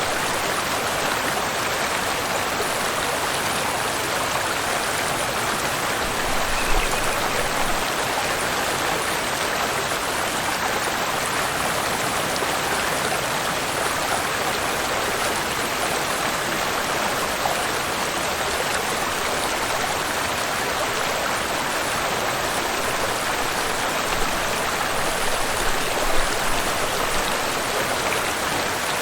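Waterfall and river water rushing steadily, an even splashing roar with no change in level.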